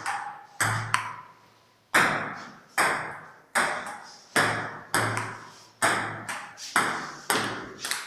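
Table tennis rally: the ball clicking off the paddles and the table, about a dozen sharp hits at a steady pace of roughly one to two a second, with a pause of about a second near the start.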